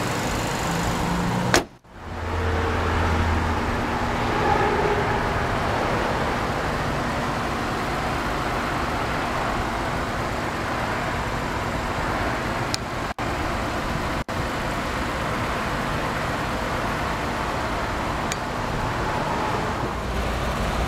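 2006 Lexus IS250's 2.5-litre V6 idling, a steady hum mixed with outdoor noise, broken by a short gap about two seconds in and two brief drops later on.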